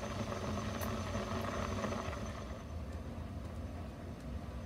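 Open pot of soaked field beans (mochai) boiling on the stove: a steady low rumble with a faint hiss that fades after about two seconds.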